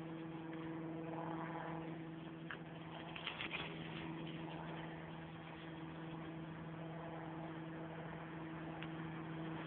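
A machine hums steadily at one even pitch, with a few faint clicks about three seconds in.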